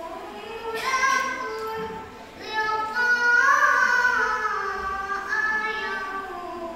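A young girl reciting the Qur'an in the melodic tilawah style, drawing out long ornamented notes. There is a short breath pause about two seconds in, and the loudest held note comes near the middle.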